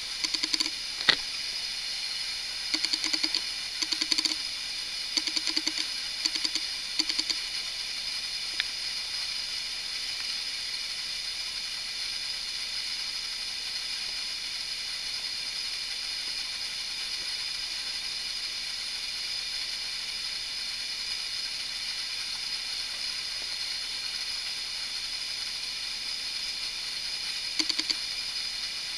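Steady high-pitched hiss, with a few short bursts in the first seven seconds and once more near the end.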